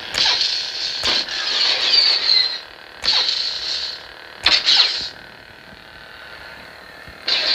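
Sabermach Dark Storm lightsaber playing its 'Crystal Focus' sound font through the hilt speaker. A steady electric hum is broken by several sudden loud effect sounds as the blade is moved.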